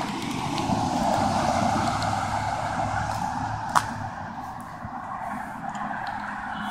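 Outdoor background noise, likely traffic, picked up by a smartphone's microphone. It swells over the first couple of seconds and eases off, with one sharp click a little under four seconds in.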